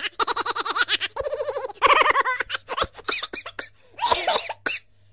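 Laughter: several short bursts of giggling and chuckling with brief gaps between, over a faint steady hum.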